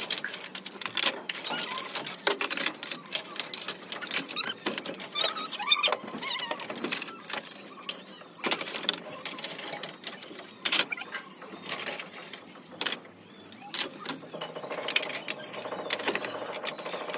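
Fired clay pots clinking and knocking against one another as they are lifted off a pile in a kiln, in quick, irregular clatters with an occasional scraping squeak. About three-quarters of the way through, a steady machine drone with several tones starts up.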